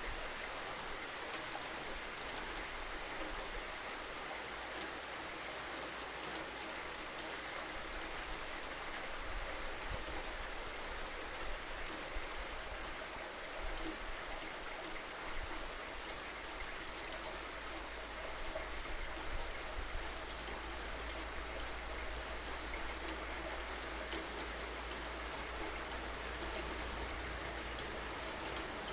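Steady rain falling: an even hiss with scattered drops, over a low steady rumble.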